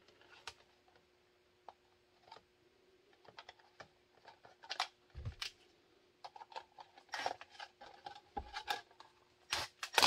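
Small screws of a kydex holster's retention hardware being driven in by hand: scattered light clicks, taps and small rattles of the parts being handled. The clicks come more often in the second half.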